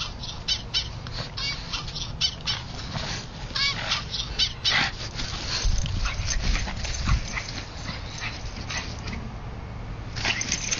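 A dog barking and yipping in quick, irregular bursts, easing off about nine seconds in and starting up again near the end, with a couple of dull thumps in between.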